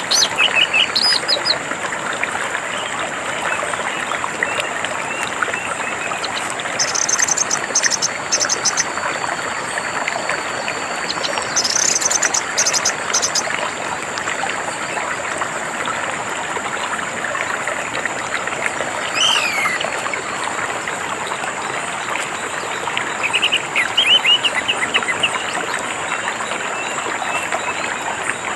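Steady sound of running stream water, with orange-headed thrush song phrases at intervals, including quick high rapid notes and descending sweeps. A thin steady high-pitched tone runs underneath.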